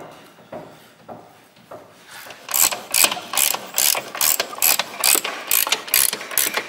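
Hand socket ratchet clicking as a bolt is undone on a car's underside. A few separate clicks come first, then a fast, even run of clicks starts about two and a half seconds in.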